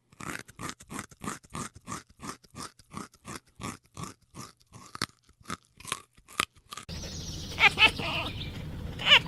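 An animal chewing food, a steady run of crisp crunches about three times a second. About seven seconds in this gives way to a different scene with a low background hum and a couple of short animal calls.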